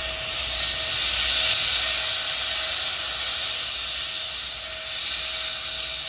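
Norfolk & Western 611, a class J 4-8-4 steam locomotive, hissing steam steadily, the hiss swelling and easing every couple of seconds.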